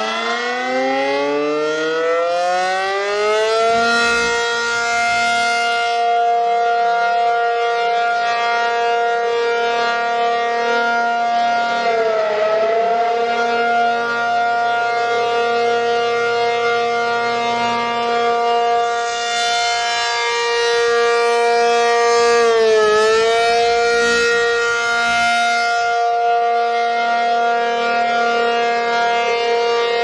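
ACA P-50 rotating outdoor warning siren sounding its steady alert tone. It finishes winding up to full pitch over the first four seconds, then holds one steady tone that grows brighter and louder as the turning horn sweeps toward the listener and fades as it turns away. The pitch dips briefly about twelve seconds in and again about eleven seconds later.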